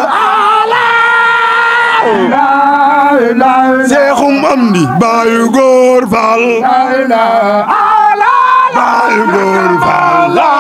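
A kourel of men chanting a Baye Fall zikr a cappella: several loud voices holding long, wavering notes that overlap one another.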